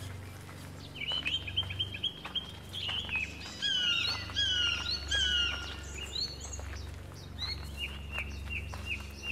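Forest birds singing: a run of quick repeated chirps, then three downward-sliding whistles less than a second apart, then another run of quick chirps. A low steady hum lies underneath.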